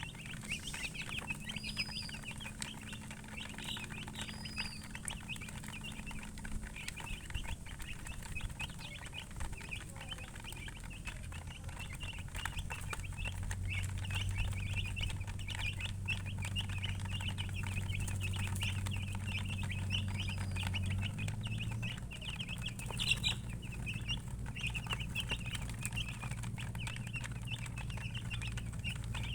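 A brood of chicks peeping continuously in a dense chorus of high cheeps, with a steady low hum underneath.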